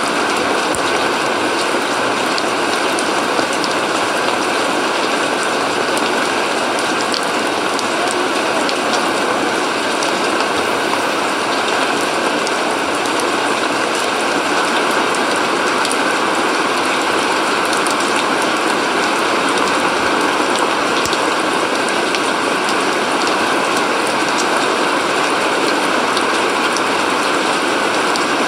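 Steady rain falling on a wet lawn and muddy ground: an even, unbroken patter with fine crackling drops and no let-up.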